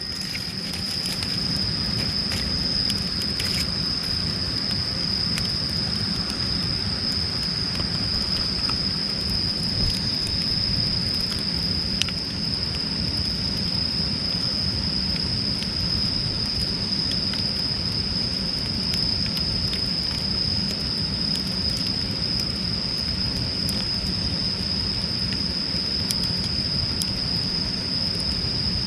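Wood fire burning, with scattered crackles and pops over a low steady rush. A constant high-pitched insect trill runs underneath.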